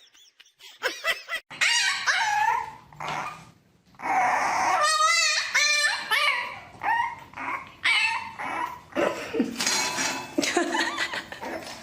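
A pet animal making a series of short, high, wavering calls, some with a quick warble, spaced by brief pauses.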